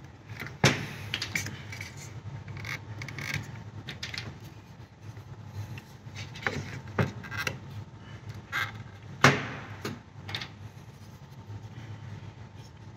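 Scattered clicks, knocks and rattles of a port-injection fuel rail being handled and pressed into place on a plastic intake manifold, with two sharp knocks, about a second in and about nine seconds in, over a low steady hum.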